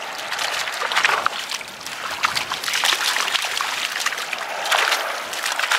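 A small dog splashing as it bounds and runs through shallow seawater, with repeated sharp splashes over a steady wash of noise.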